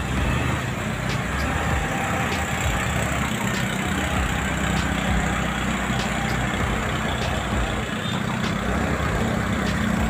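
Motor vehicle engines running close by, a steady low rumble with road traffic noise, as a diesel wheel loader works at close range.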